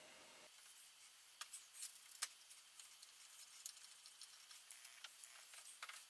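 Near silence with a few faint, irregular small clicks and ticks, the clearest a little past two seconds in.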